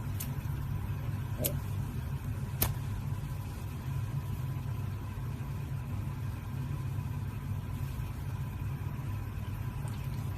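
Steady low rumble with a faint steady tone, like a running vehicle or machine heard from inside, with three short clicks in the first three seconds.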